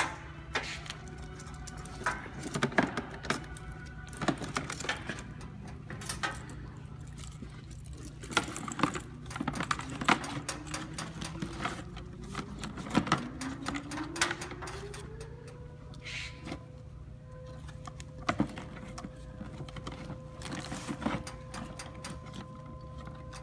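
Clicks, knocks and rustling from a Scott RIT-Pak III SCBA face mask, low-pressure hose and fittings being packed by hand into a nylon rescue bag. About halfway through, a humming tone rises in pitch, then holds steady to the end.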